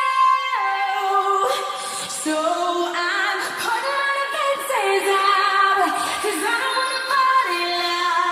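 A woman singing a K-pop song, holding notes that step up and down in pitch, with hardly any bass underneath.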